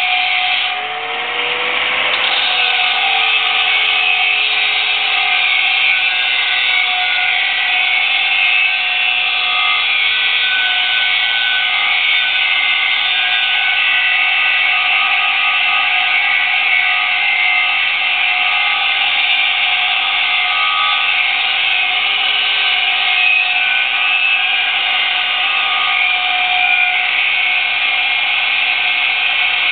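Angle grinder with a grinding disc held against a steel dyno roller, grinding its surface while the disc's contact turns the roller. It makes a steady, loud grinding whine that dips briefly about a second in.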